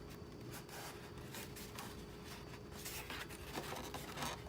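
Faint rustling, rubbing and scraping of cardboard and packing material being handled in an unboxing, in short irregular strokes.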